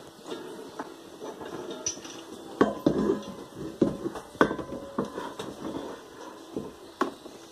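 Cast iron skillet handled and hung on a wall hook: irregular light clatter with a few sharp knocks and clanks as the pan meets the hook and the wooden boards.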